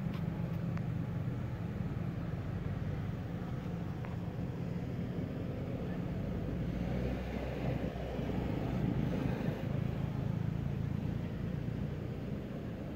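Steady low rumble of motor vehicles, a running engine or road traffic, swelling somewhat about seven to ten seconds in.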